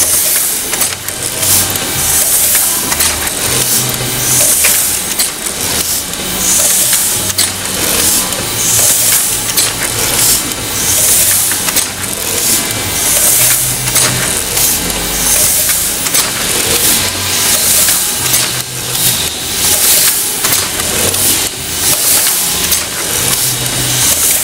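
Heidelberg T 10x15 Windmill platen press running under power and foil stamping, a steady rhythmic mechanical clatter of many clicks and knocks. A hiss comes about every two seconds as it cycles.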